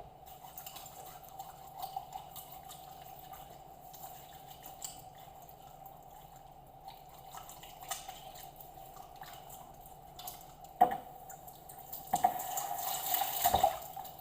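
Water running and dripping at a kitchen sink as a raw whole chicken is rinsed clean of blood, with small clicks throughout. There is a sharp knock about eleven seconds in, and louder splashing near the end.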